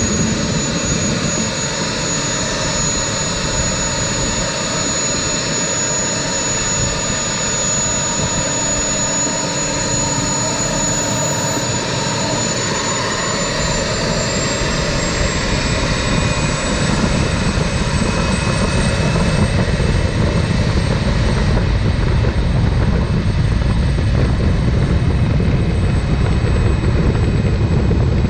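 Gas turbine engine of a turbine-powered street rail running under way, a steady high-pitched whine that rises slightly in pitch about halfway through. A low rumble grows louder in the second half.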